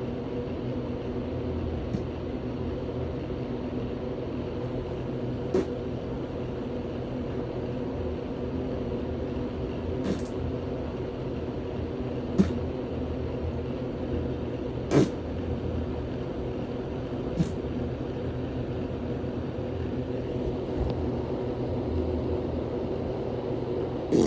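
A steady low motor drone with a few even tones, broken by about seven sharp clicks or taps spaced several seconds apart.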